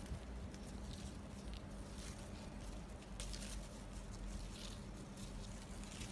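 Raspberry leaves and canes rustling and crackling irregularly as a hand pushes through them, over a low steady rumble.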